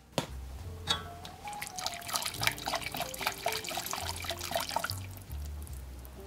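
Coil whisk stirring a cream sauce in a stainless steel saucepan: rapid clicks and scrapes of the wire against the pan, with the liquid sloshing. These start about a second and a half in and ease off near the end. Background music with held notes and a bass line plays underneath.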